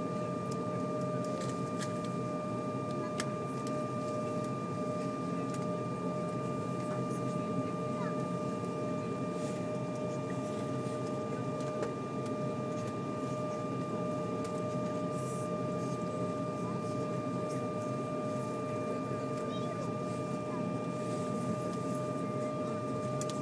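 Steady machine drone heard inside an airliner cabin on the ground, with a constant whine held at one pitch and a fainter higher overtone above it.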